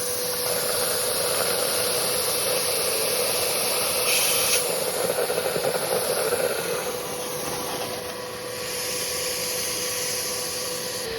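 Vacuum cleaner running with a straw fitted to its nozzle, sucking coolant out of a snowmobile engine block. There is a steady motor hum and rush of air, with an uneven slurping flutter from about four to seven seconds in as liquid is drawn up the straw.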